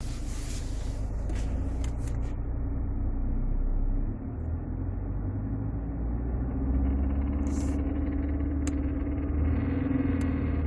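Cabin sound of a 2007 Mercedes-Benz C200 CDI (W203) running: a steady drone and low rumble, with the hum growing stronger about six and a half seconds in, and a few short clicks in the first two seconds and later. The owner reports a strange noise from the automatic gear selector area at 2000 rpm and above, and is unsure whether the 722.6 gearbox or the torque converter is behind it.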